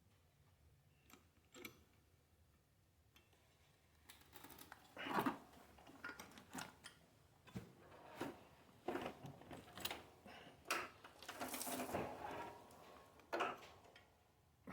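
Scattered clicks, light knocks and rustles of tools and parts being handled during a wheelchair motor repair. They start after a few quiet seconds and come thicker and louder in the second half.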